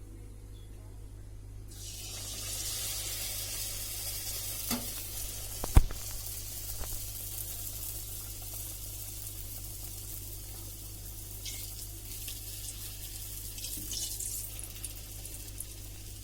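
Wheat-flour momos frying in hot oil, a steady sizzle that starts suddenly about two seconds in as they go into the pan. A single sharp clack about six seconds in is the loudest moment.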